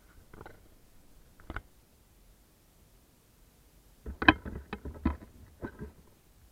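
A cat playing with a feather wand toy: a couple of soft taps, then a cluster of sharp knocks and rattles about four seconds in as the cat bats and scrambles on the wooden bench and the wand swings.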